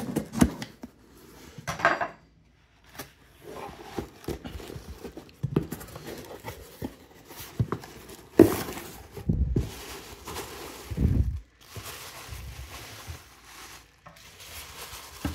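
Cardboard shipping box being opened: a knife slits the tape near the start, then the flaps are pulled back and white tissue paper packing is crumpled and pulled out, rustling and crinkling with scattered knocks against the cardboard.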